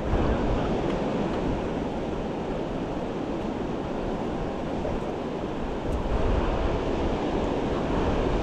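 Ocean surf washing in steadily, with wind rumbling on the microphone, louder at the start and again from about six seconds in.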